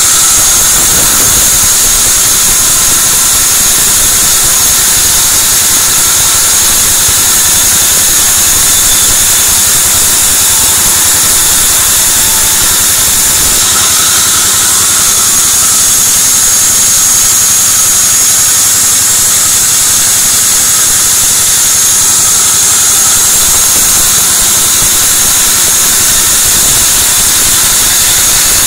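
Large sawmill band saw running and ripping a white teak beam: a loud, steady hiss with a high whine over it.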